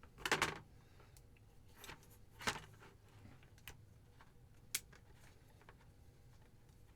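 Handling noise from taking apart a Corsair H55 water cooler: scattered clicks and short rustles of small hard parts, the loudest just after the start and another about two and a half seconds in.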